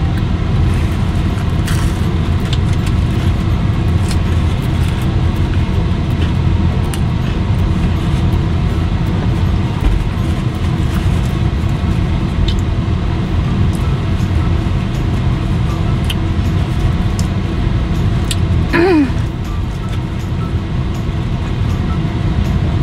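Steady hum of a car's cabin, with small clicks of chewing fried chicken scattered through it, and a short falling hum of the voice about nineteen seconds in.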